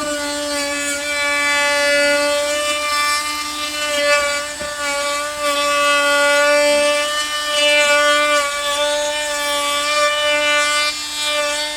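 Electric wood router running at full speed, its round-over bit cutting along the edge of a wooden board: a steady high-pitched whine that wavers slightly as the cut loads it, falling away right at the end.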